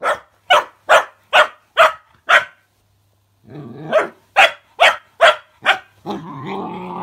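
Cocker spaniel puppy barking in two quick runs of short, sharp barks, six and then five, about two or three a second. A brief low growl comes between the runs, and a longer low growl near the end.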